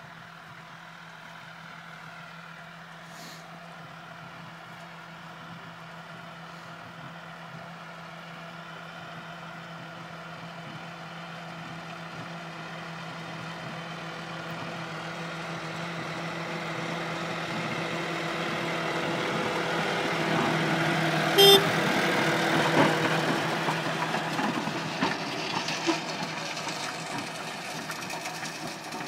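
A farm tractor's diesel engine runs steadily as it pulls a field roller across the soil. It grows steadily louder as the tractor approaches, is loudest as it passes about three-quarters of the way through, then fades as it moves away. A single sharp click comes at the loudest point.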